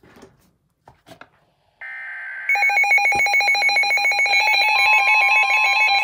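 Several NOAA weather alert radios going off at once, triggered by a severe thunderstorm warning. A short buzzy tone comes first, then from about two and a half seconds in a loud, fast electronic beeping at several pitches layered together, with a steady tone joining about halfway.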